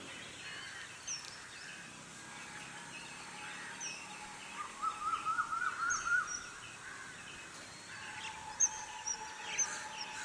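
Several wild birds chirping and calling over a steady outdoor background hiss, with a quick run of about a dozen rising notes in the middle and a faint steady tone near the end.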